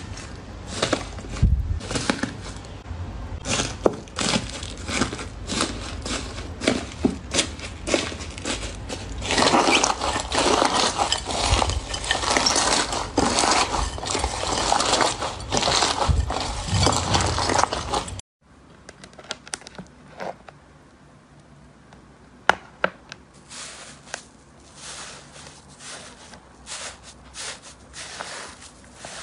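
Hands pressing and squishing slime with a cracking crust, giving dense crackling and crunching. About two-thirds of the way through it cuts to a quieter crumbly slime being pressed, with softer, scattered crunches.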